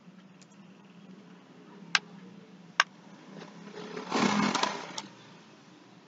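Two sharp clicks, about a second apart, then a rough noisy rush that swells and fades for about a second and a half, over a low steady hum.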